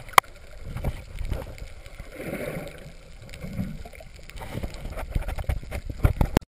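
Low rumbling water and boat noise, with a sharp click just after the start and several knocks near the end, before the sound cuts off suddenly.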